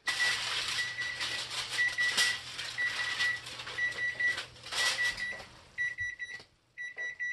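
A timer beeps repeatedly, in short groups of high beeps about once a second, marking the end of the simmer time. For the first five seconds aluminum foil is crinkled and pulled off a cast iron skillet over the beeping. After that the beeping goes on alone.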